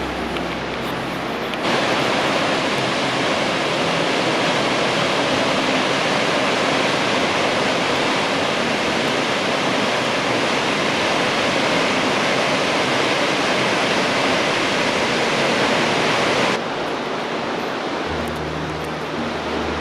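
Waterfall rushing: a steady, even roar of falling water that steps up suddenly about two seconds in and drops back abruptly near the end, where a low hum joins in.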